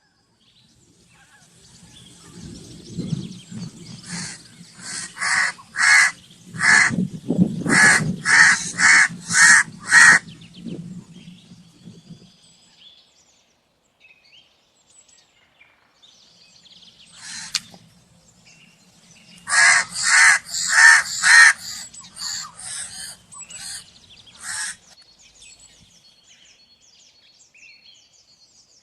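Crow cawing in two bouts of rapid, repeated caws, about ten calls each, with a pause of several seconds between them.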